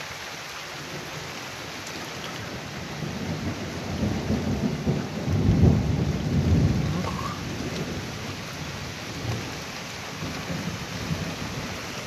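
A roll of thunder over steady rain. The thunder swells about three seconds in, is loudest around the middle and dies away a few seconds later.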